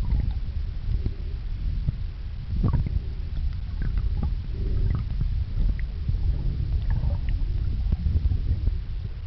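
Muffled underwater churning from swimmers' fin kicks and air bubbles, heard through a camera sealed in a plastic bag: a steady low rumble with scattered small pops and clicks.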